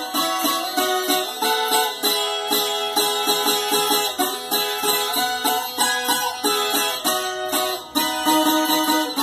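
Viola caipira, the Brazilian ten-string folk guitar, being played: a quick run of plucked notes over ringing strings.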